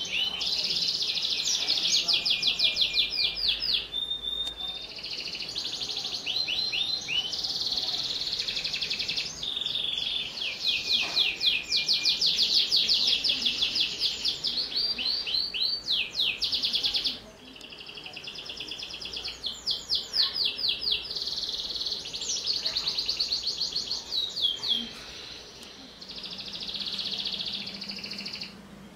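Domestic canary singing a long, continuous song of rapid high trills and rolls. It pauses briefly about two-thirds of the way through and again near the end.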